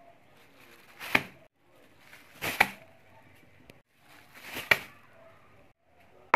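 Tableware knocking down on a table: three sharp knocks about a second and a half to two seconds apart, each after a short rustle, and a fourth right at the end.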